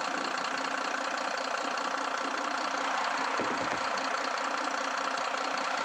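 BharatBenz truck's diesel engine idling steadily.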